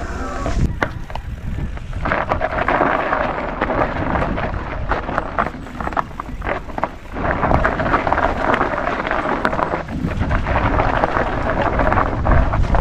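Mountain bike tyres skidding and scraping over steep dirt and gravel under hard braking, with the bike rattling over bumps and wind buffeting the microphone. The scraping eases briefly twice, about seven and ten seconds in.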